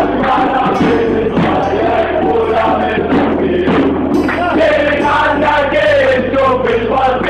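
A crowd of football supporters singing a chant together, many male voices carrying one melody without a break.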